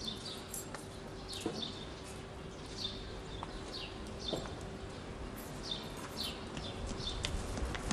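Small birds chirping: short, repeated, downward-sliding chirps, roughly one a second, over a faint steady hum.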